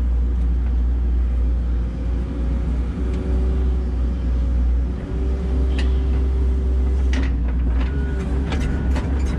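Excavator's diesel engine running under load, heard from inside the cab, with a steady low rumble and a whine that holds and shifts slightly in pitch. A few short clicks and knocks come in the second half.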